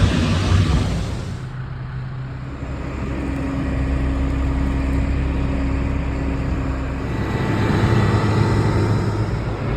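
Farm machinery engine running steadily with a low hum. The sound changes abruptly about a second and a half in, when a loud hiss drops away.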